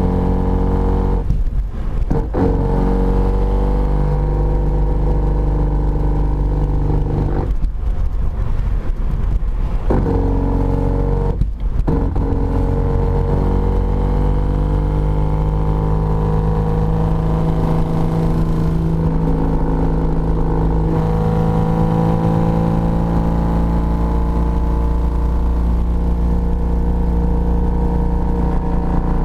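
A 1993 BMW 325is on the move, its straight-six engine running with a pitch that slowly rises and falls and drops out briefly a few times. A broken differential mount bolt lets the differential lift and rub, which the driver says is rubbing so badly it is burning the steel.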